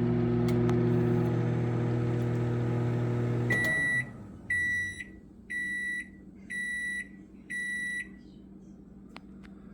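Sharp Carousel SMC1662DS microwave oven running with a steady hum that stops about three and a half seconds in as its timer runs out. It is followed by five end-of-cycle beeps, about one a second.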